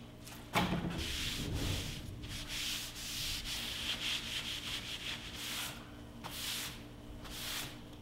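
A rag wiping wood stain across a birch plywood panel, rubbing in repeated swishing strokes, several separate strokes near the end. A single knock about half a second in.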